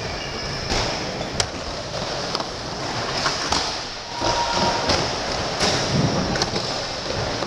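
Skate wheels rolling on a vert ramp: a steady rumble broken by several sharp clicks and knocks as the wheels hit the ramp and coping.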